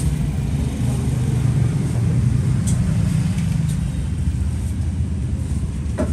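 Steady low rumble of road traffic, with a few faint sharp clicks of a Zippo lighter being handled: one at the start and two around the middle.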